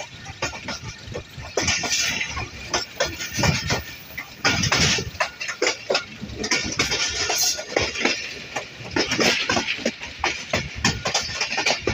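Passenger coach wheels clattering over rail joints at speed: a run of irregular knocks with recurring swells of hiss.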